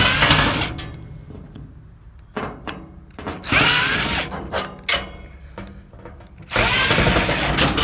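Power drill backing screws out of a pool heater's sheet-metal side panel in three short runs of about a second each, its motor whine rising as it spins up. Clicks and knocks come between the runs.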